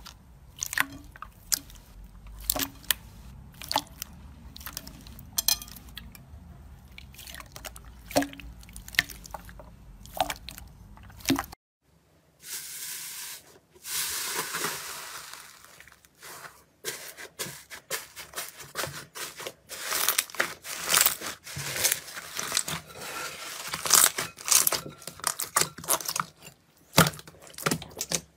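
Hands squishing a mass of clear, wet slime, giving scattered sharp pops and clicks over a low hum. After a sudden cut about eleven seconds in, a hand presses into crusted iceberg slime, with a dense crunching crackle followed by many small crackles as the dried crust breaks.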